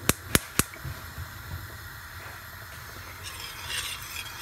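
Gas hob burner being lit: the electric igniter clicks rapidly, three clicks in the first half-second, then the flame settles into a steady hiss. Near the end a spoon starts stirring the cream sauce in a steel pot.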